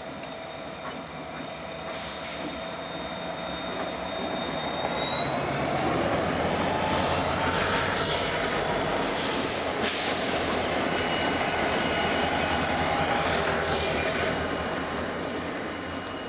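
Norfolk Southern diesel-electric locomotives passing close by. The engine rumble swells to a peak midway and then eases off, over a thin high squeal that climbs in pitch around the middle and settles again. A couple of sharp knocks come about ten seconds in.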